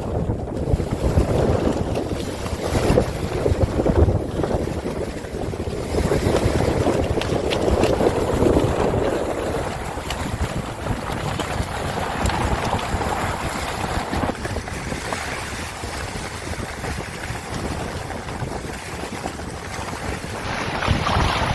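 Wind gusting across the microphone over the wash of water around a boat, an uneven rumbling noise that rises and falls.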